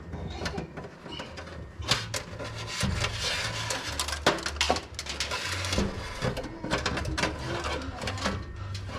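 Hand-work handling noise on electrical wiring: irregular clicks, knocks and rustling of cables and parts being fitted, with a low hum coming and going.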